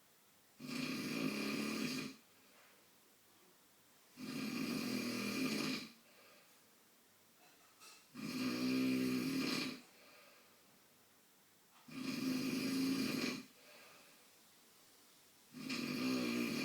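A man snoring in his sleep: five snores evenly spaced about four seconds apart, each lasting about a second and a half, with quiet gaps between.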